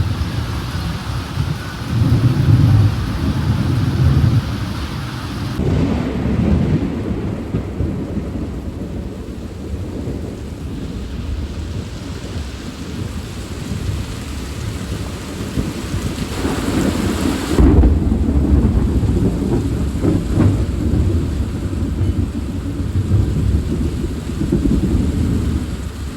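Thunder rolling in long low rumbles over steady rain, with a louder burst of thunder about two-thirds of the way through.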